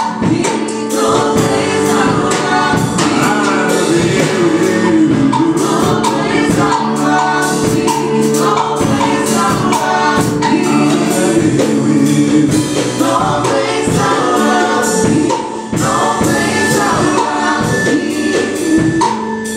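Live gospel worship music: a woman singing lead over sustained chords from a Roland FP-80 digital piano, with a steady beat of percussion.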